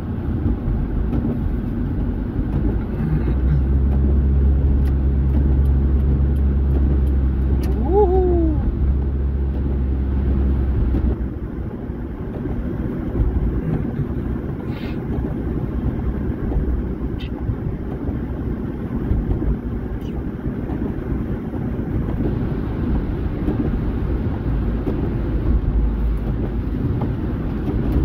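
Road and engine noise heard inside a moving car on a wet, slushy road: a steady low rumble, with a deeper steady hum from about three to eleven seconds in.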